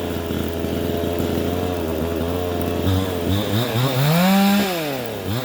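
Vevor 62cc two-stroke chainsaw running steadily, then revved up and let back down over about a second and a half, picking up again just at the end.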